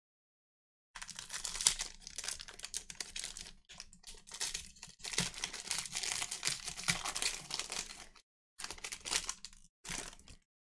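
Trading-card pack wrapper being torn open and crinkled, a dense crackling rustle with many small clicks that stops and starts twice near the end.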